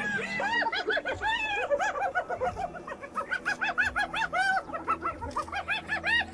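Spotted hyenas giggling: a rapid run of short, high, rising-and-falling yelps, several voices overlapping.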